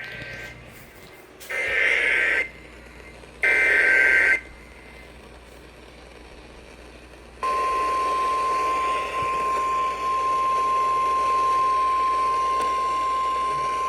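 Emergency Alert System activation on an FM radio broadcast. Two loud, harsh, buzzing bursts of the digital alert header, each about a second long, come a second apart. After a pause of about three seconds, a single steady high alert tone starts about seven seconds in, with a faint hiss beneath it.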